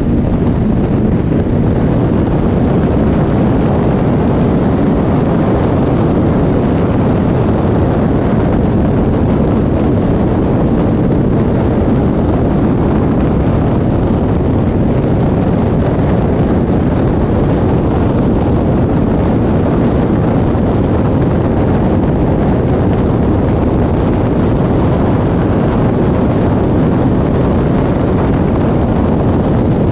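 Caterham 420R's four-cylinder engine running hard at speed, with heavy wind buffeting on the microphone in the open cockpit, steady throughout.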